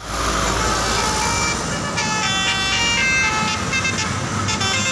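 Basuri telolet multi-tone vehicle horn playing a tune of short, changing notes from about two seconds in, over steady engine and road noise.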